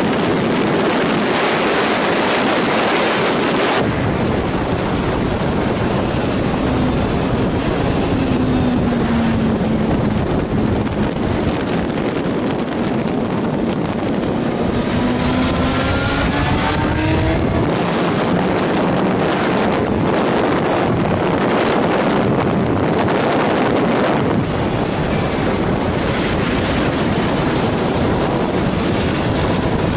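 Suzuki GSR's inline-four engine running at speed on track under heavy wind rush over the microphone. About a third of the way in, the engine note sinks for a few seconds as the bike slows for a bend, then climbs steadily as it drives out.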